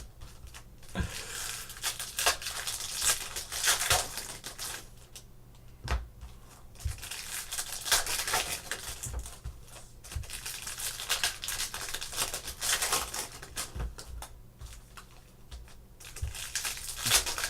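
Plastic packaging crinkling and tearing by hand, with scattered clicks and taps: trading-card wrapping being handled and opened.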